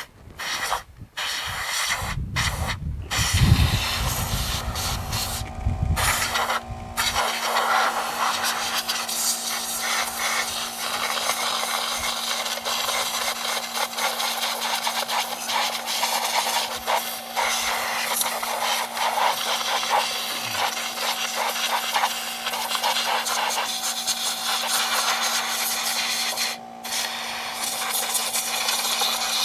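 Compressed air hissing and scraping as a packed mouse nest is cleared out of a Briggs & Stratton flathead engine's cooling fins. From about four seconds in, a steady motor hum from the air compressor runs underneath.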